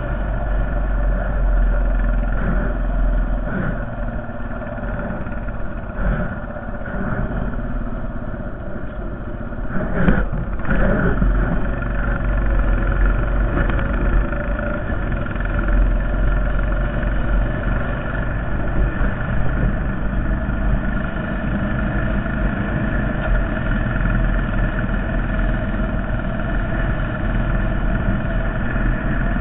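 Honda Foreman 450 ATV's single-cylinder four-stroke engine running steadily while plowing snow, with a couple of knocks about ten seconds in, after which the engine runs a little louder.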